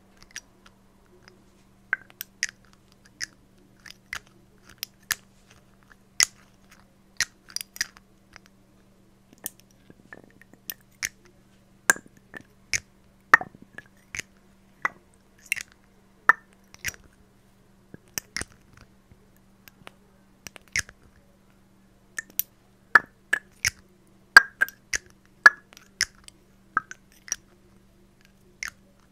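Fingernail taps and clicks on a small glass dropper bottle and its dropper cap, held close to the microphone: sharp, crisp clicks at an irregular pace of about one or two a second, some in quick pairs or triples.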